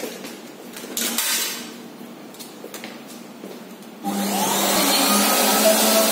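A coin clatters through an automatic popcorn vending machine's coin acceptor with a few clicks. About four seconds in, the machine starts up with a loud, steady motor whir that rises in pitch as it gets up to speed.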